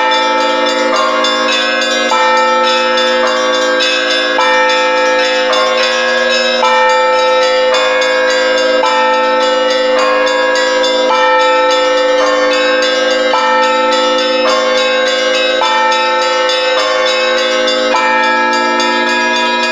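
Russian Orthodox church bells rung all together to call the faithful to evening vespers. Higher bells are struck in a changing pattern about every half second to a second over the steady ringing of the deeper bells.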